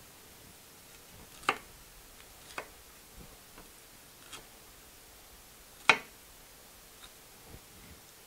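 Kitchen knife cutting green bell pepper on a cutting board: separate sharp taps of the blade hitting the board, irregular and roughly a second apart, the loudest about two-thirds of the way through.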